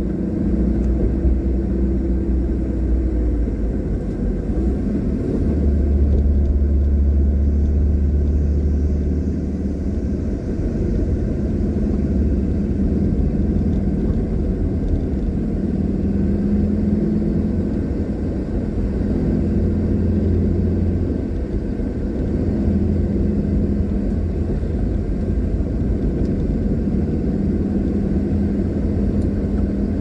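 Car engine and road noise heard from inside the moving car: a steady low rumble, with an engine hum that shifts a little in pitch now and then.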